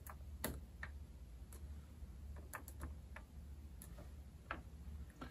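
Faint, scattered clicks and taps of multimeter test probes touching and being moved between the metal terminals of a plastic circuit trainer board, over a low steady hum.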